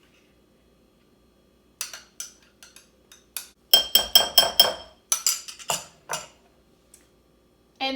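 A utensil scraping and clinking against a bowl as batter is poured and scraped out, with a quick run of about five ringing clinks about four seconds in.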